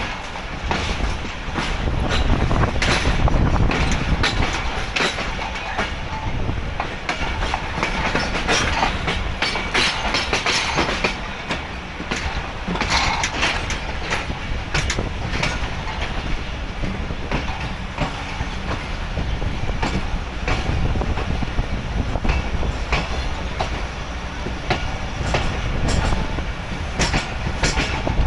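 Passenger train coach wheels clattering over rail joints and yard pointwork as the train pulls out, with irregular clacks over a steady low rumble, heard from aboard the moving coach.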